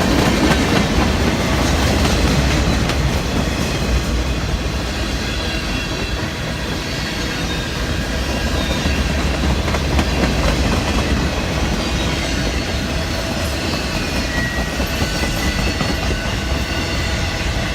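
Freight train cars rolling past, a steady rumble of steel wheels on rail with thin high wheel squeals here and there.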